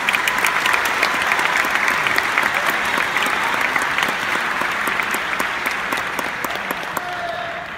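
Audience applauding, a dense patter of clapping that fades out near the end.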